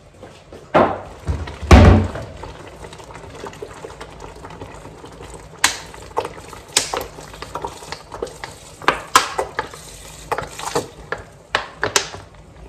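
Red wine vinegar poured from a plastic bottle into a large stainless steel stockpot of chopped fruit, a steady trickling wash broken by scattered sharp clicks. Near the start come two heavy thumps, the second the loudest.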